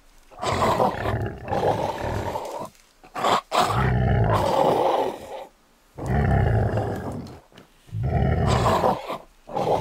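Big-cat roars and growls, played as sound effects for toy lions and tigers: about four long roars in a row with short pauses between them.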